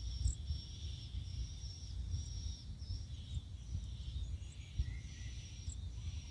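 Insects chirring steadily in a high band that pauses briefly now and then, over a low, uneven rumble, with a few faint bird chirps.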